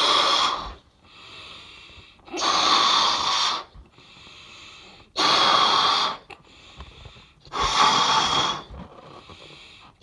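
A person blowing hard into a balloon to inflate it: four long, forceful exhalations about two and a half seconds apart, with quieter breathing in between.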